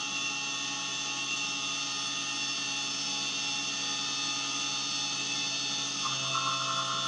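CNC milling machine cutting a metal block with an end mill under coolant spray: a steady high whine of several held tones over a hiss. About six seconds in, a new higher tone and a low hum join as the cut changes.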